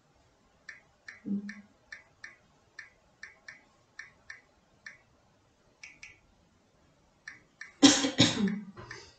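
Smartphone on-screen keyboard clicking with each key tap as a short message is typed, about two taps a second. Near the end comes a louder, short burst of noisy breath from a person with a hand over his mouth.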